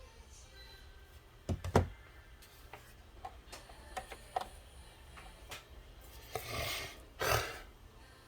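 Small objects being handled on a work surface: a couple of sharp knocks about a second and a half in, scattered light clicks, then two short rustling scrapes near the end.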